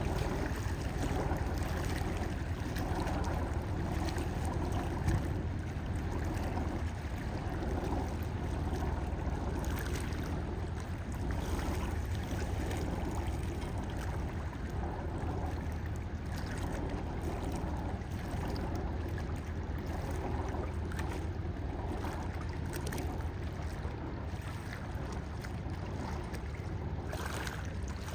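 Fishing boat's engine running steadily with a low hum as the boat motors through the harbour, with water washing around it.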